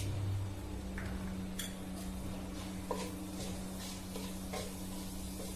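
Wooden spatula stirring mustard and cumin seeds in hot oil on a flat nonstick pan, with scattered small clicks and a light sizzle. A steady low hum runs underneath.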